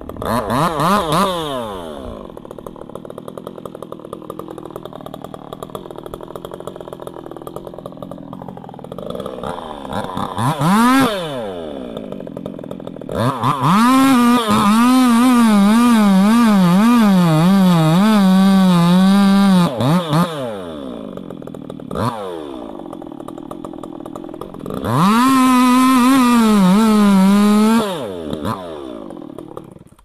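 Two-stroke chainsaw revving and idling by turns. In two long spells at high speed, the second half of the way in and again near the end, the pitch sags and wavers as if the chain is under load in wood. There are short blips of throttle in between, and the sound cuts off at the end.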